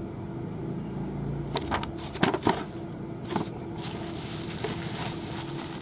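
Bubble wrap crinkling and rustling as a wrapped radio is handled, with a few sharp crackles in the middle and a softer rustle near the end.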